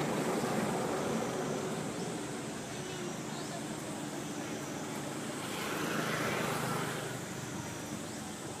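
Outdoor background noise like passing road traffic, swelling about six seconds in.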